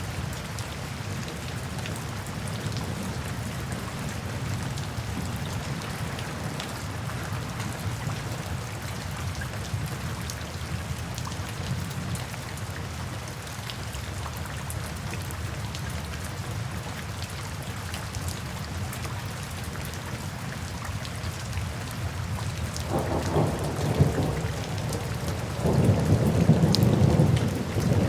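Steady rain falling, with a low rumble of thunder underneath and two louder thunder rumbles near the end.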